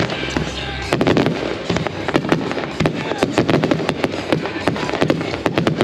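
Consumer fireworks finale: a dense, rapid barrage of bangs and crackling as many aerial shells and cakes launch and burst at once.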